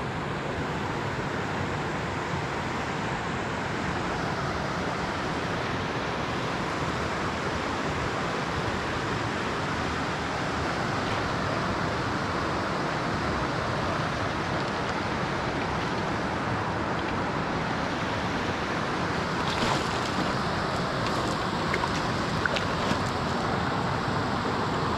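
Steady rush of a clear mountain river running over rocks and riffles. Near the end a few light splashes and ticks come through as a small trout is brought in by hand at the water's surface.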